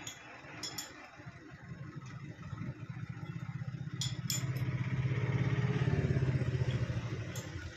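A motor vehicle's engine swells and fades, loudest about six seconds in, over a few sharp metallic clinks of a spanner on steel hydraulic fittings.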